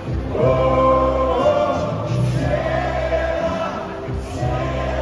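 Loud party music playing, with many voices singing along together in chorus.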